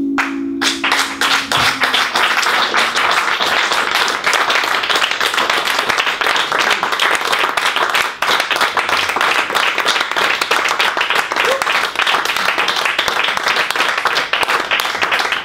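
Small audience applauding steadily. It starts about half a second in, as the last chord of an archtop hollow-body electric guitar dies away.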